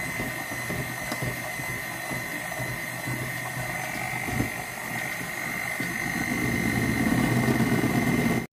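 Electric hand mixer running, its beaters whisking egg batter in a stainless steel bowl: a steady motor whine over rattling beaters, growing louder in the last couple of seconds before cutting off suddenly.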